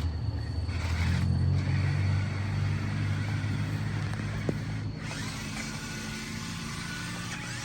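Toy off-road RC car's electric drive motor running with a low rumble and a thin steady whine, cutting off about five seconds in as the car stops.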